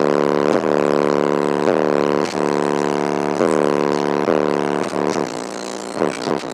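Deep bass notes from a subwoofer playing music, recorded so loud that they come through as a distorted, buzzing drone. A new note starts every second or so, each dipping slightly in pitch at its start.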